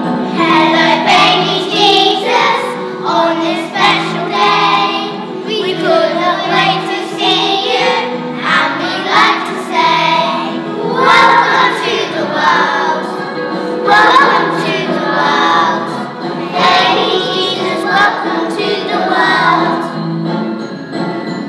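A choir of young children singing a song together over a musical accompaniment.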